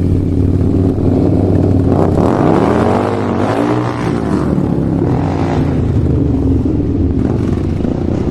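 Motorcycle engine idling steadily, then revved up and down a few times from about two seconds in before settling back to a steady run.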